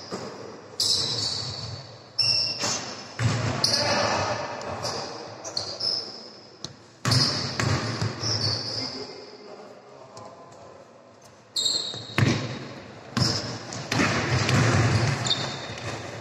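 Basketball bouncing and thudding on a gym floor during play, mixed with short high sneaker squeaks, in a large echoing hall. The impacts come irregularly, several in quick succession early on, a sparse stretch in the middle, then more near the end.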